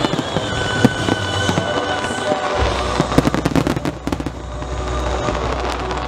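Aerial fireworks shells bursting and crackling, with a dense run of sharp cracks about halfway through, over music playing with the display.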